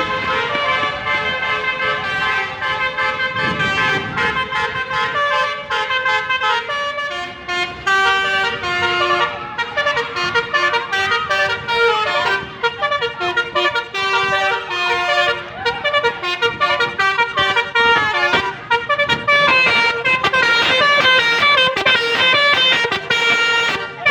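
Telolet basuri multi-trumpet musical car horn playing a tune: held chords of several horn notes at first, then quick stepping notes from about seven seconds in.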